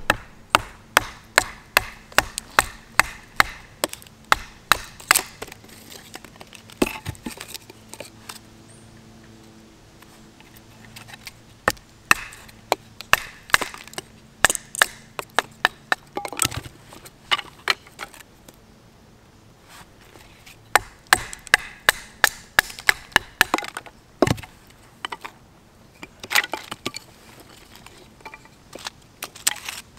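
Wooden baton striking the spine of a small Neanderthart Lusievo neck knife, driving it down through a short log section to split kindling. Runs of sharp knocks, a little over two a second, broken by short pauses, with the crack of the wood splitting.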